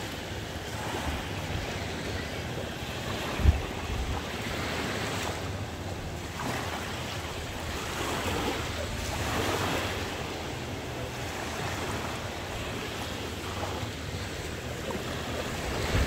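Small waves breaking and washing up a sandy shore in slow surges that swell and ease every few seconds, with wind rumbling on the microphone. A brief low thump about three and a half seconds in.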